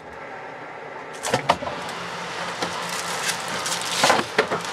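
Glass jars clinking and knocking and a plastic bread bag rustling as food is pulled out of a refrigerator, over a steady low hum. There are two louder knocks, one about a second and a half in and one near the end.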